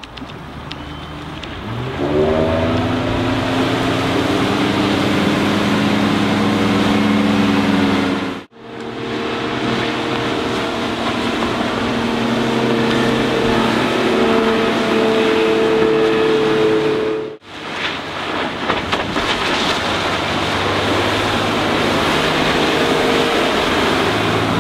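2006 Bayliner 192's MerCruiser 4.3-litre V6 sterndrive running at speed on the water. It revs up about two seconds in, then holds a steady pitch over a constant hiss, and the sound cuts out briefly twice.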